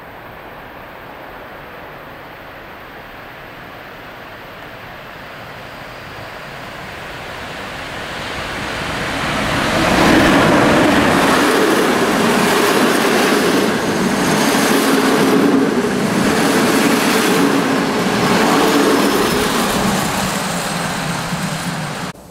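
Electric-hauled passenger train approaching and passing close by, growing louder over the first ten seconds. It then runs loud with the coaches' wheels clattering over rail joints, and cuts off suddenly near the end.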